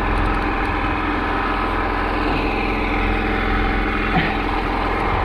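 Engine on the fishing boat running steadily at idle, an even low drone with a faint short click about four seconds in.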